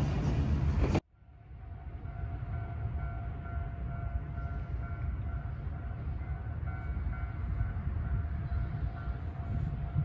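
Loud rushing noise that cuts off suddenly about a second in. A low rumble follows, with a faint, steadily pulsing tone from a railway level-crossing warning bell in the distance.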